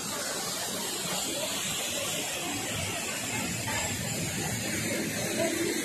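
Waterfall and stream water falling and running with a steady, even hiss.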